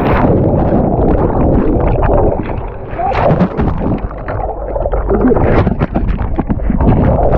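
Action camera plunging underwater at the bottom of a water slide: a splash, then a muffled underwater rumble with bubbling and crackling as the water churns around the camera.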